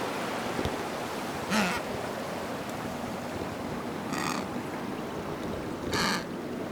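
Penguins calling in the wild: three short, harsh calls, about a second and a half in, about four seconds in and about six seconds in, over a steady rushing background noise.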